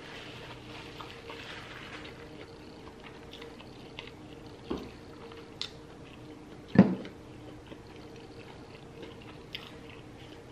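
Close-miked chewing of fried chicken wings, with wet mouth sounds. A sudden thump about seven seconds in is the loudest sound, with a smaller one just before five seconds.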